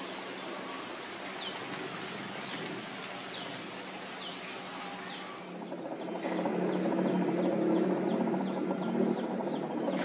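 Birds chirping outdoors over a steady hiss of background noise: short calls falling in pitch, about one a second. Near the middle the sound cuts to a louder, busier outdoor scene with a regular run of short chirps, about three a second.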